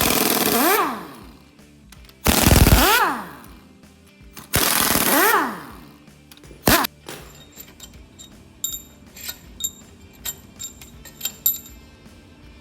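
Impact wrench with a 15 mm socket hammering out cylinder head bolts on a GM 5.3 L V8: three runs of about a second each and a short blip, then light metallic clinks of the loosened bolts and tools.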